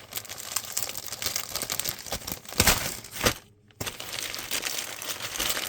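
Packaging being handled during an unboxing: a steady crinkling rustle with two louder crackles a little past halfway, then a brief gap.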